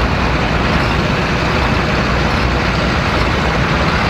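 A 466-cubic-inch hot farm pulling tractor's diesel engine running steadily at the start line while hooked to the sled, with a deep, even rumble.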